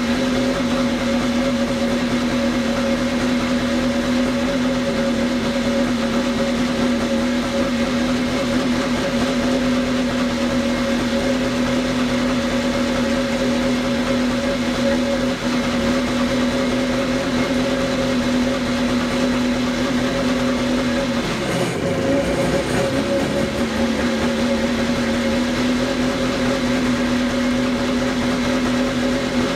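1987 Kawasaki X2 jet ski's two-stroke twin engine running steadily on a stand, fed cooling water by a garden hose. About three-quarters of the way through it drops in speed for a couple of seconds, then picks back up. This is its first run after restoration, and the owner feels the carburetion still needs more tuning.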